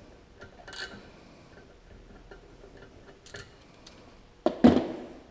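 Hand socket ratchet clicking in small strokes as bolts are backed out of the secondary clutch, then a loud metal clank near the end.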